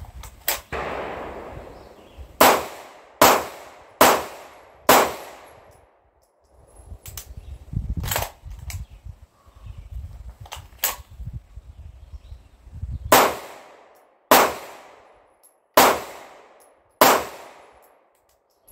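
Sig Sauer P226 pistol fired in two strings of four shots from the holster: the first four come a little under a second apart, the second four about a second and a half apart, each crack trailing a short echo. A few fainter cracks fall in the gap between the strings.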